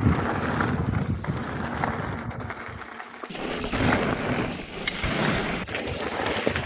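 Mountain bike being ridden on a rough trail: tyre noise and the rattle and clicking of the bike, with wind buffeting the microphone. The sound changes abruptly about three seconds in.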